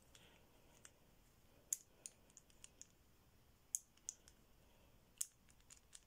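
Number wheels of a combination padlock being turned by hand, giving short, irregular clicks as the dials step round, three of them sharper than the rest. The wheels are being turned with the shackle pulled under tension, to feel which wheel binds and so decode the combination.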